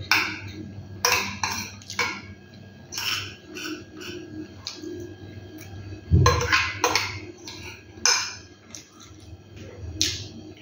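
A spoon scraping and clinking against a plate, mixed with chewing and the mouth sounds of eating fried chicken and rice, in a run of short, sharp noises. A heavy thump about six seconds in is the loudest sound.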